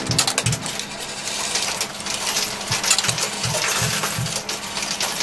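Quarters clinking and clattering in a coin pusher arcade machine: a dense run of small metallic clicks, with soft low knocks repeating irregularly underneath.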